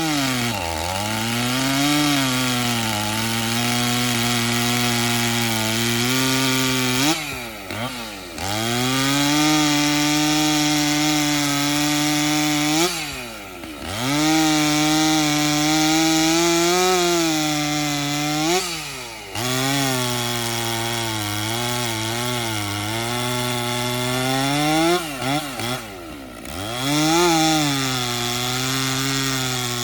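Stihl 044 70cc two-stroke chainsaw running at high revs, cutting into wood. Its note sags and wavers, and four times it drops briefly, then revs back up.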